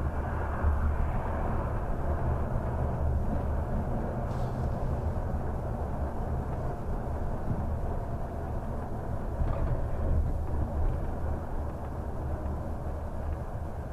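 Large bus driving along a city street, heard from inside the driver's cab: a steady low rumble of engine and road noise with no sharp events.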